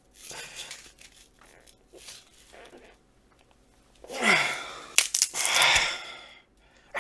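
A foam-cored fiberglass composite strip being bent by hand, crackling faintly as the laminate flexes. Then loud straining groans and exhales from the man doing the bending, with a few sharp cracks about five seconds in.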